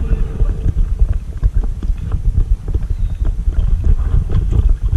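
Kayak paddling: a double-bladed paddle dipping and splashing, with many irregular clicks and knocks, over a steady low rumble of wind buffeting the bow-mounted camera's microphone.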